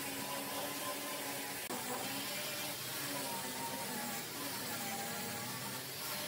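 Steady, even background hiss with faint wavering tones over it and no distinct knocks or strikes.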